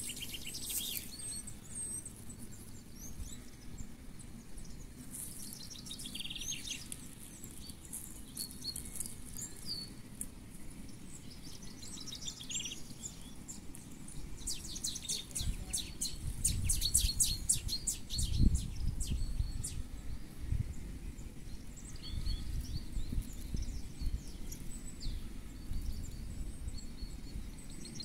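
Small songbirds chirping and singing in repeated short calls and trills. A low rumble swells in the middle and fades again.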